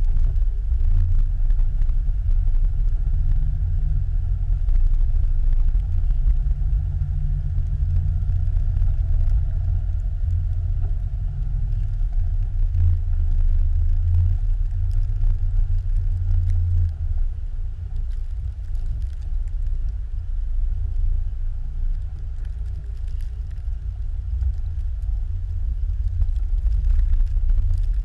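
Jeep Grand Cherokee ZJ driving through deep fresh snow: a steady low rumble of engine and drivetrain, picked up by a camera mounted on the outside of the vehicle. It eases a little past the middle and builds again near the end.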